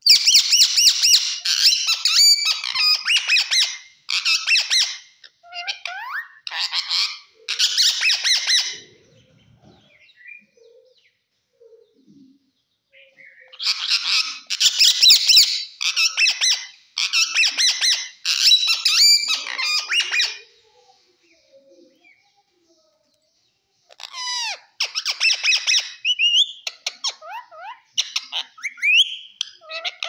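Rose-ringed (Indian ringneck) parakeet calling in loud, harsh, chattering bursts lasting several seconds, with pauses of a few seconds between them. Near the end come a few short rising and falling whistles.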